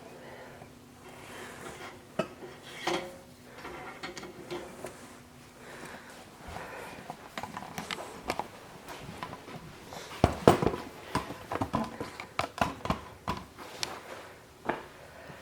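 Scattered clicks and clattering knocks of things being handled in a small room, thickest and loudest in a run of sharp knocks from about ten to thirteen seconds in, over a faint steady hum during the first few seconds.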